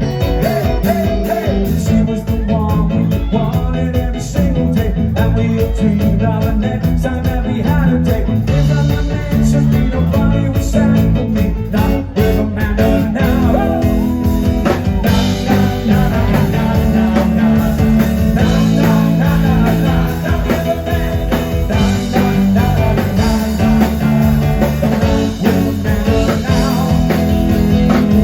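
A rock band playing live: electric guitar, bass and drums with singing.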